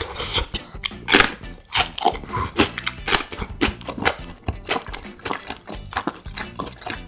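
Close-miked crunching and chewing of a raw crisp green pepper (asagi gochu) in the mouth, with sharp crunches about twice a second.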